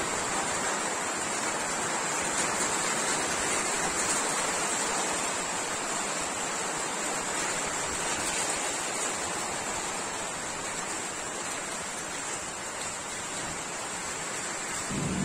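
Hailstorm: hail and rain pelting down steadily, a dense hiss of countless small impacts that eases off a little in the second half.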